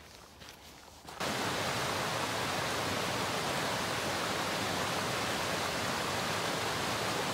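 Faint footsteps on dry leaf litter, then about a second in the steady, even rush of a small waterfall cuts in abruptly and continues.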